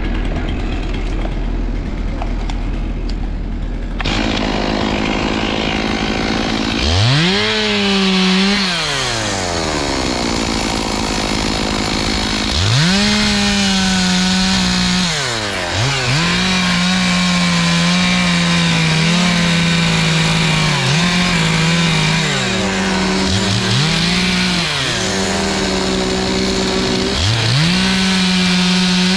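Stihl MS 461 two-stroke chainsaw revving up to full throttle and cutting through a thick poplar trunk. It falls back to idle between cuts, and its pitch sags briefly several times as the chain takes load in the wood.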